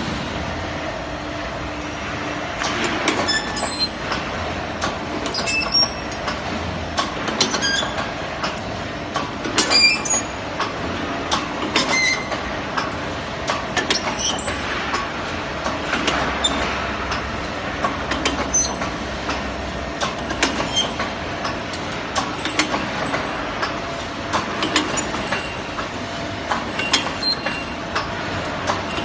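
Hydraulic CNC tube punching machine running: a steady hum from the hydraulic unit, broken about every two seconds by a sharp metallic clank, several of which ring briefly as the punch strikes the tube.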